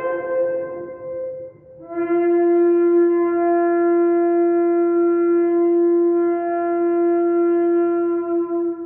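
Ram's horn shofar: one blast trails off in the first second and a half, and after a short break a single long, steady blast is held at one pitch for about seven seconds before it fades near the end.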